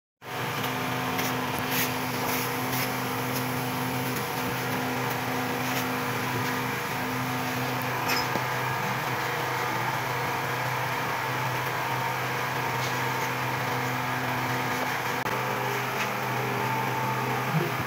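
A steady mechanical hum with a low, even tone, and a few faint light ticks over it.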